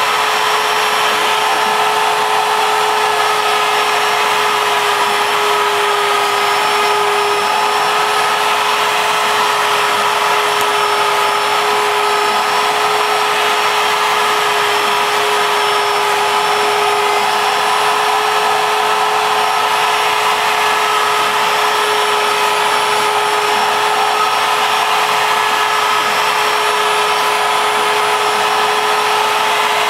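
Router spindle on a ShapeOko CNC mill running steadily at high speed, its cutter milling MDF, with a steady high whine. Mixed in is the continuous noise of a vacuum pulling sawdust through the dust shoe's hose.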